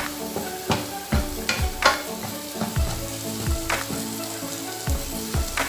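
Wooden spatula scraping and tapping in a nonstick frying pan, irregular strokes a few times a second, as boiled eggs are tossed through a thick onion masala that sizzles underneath.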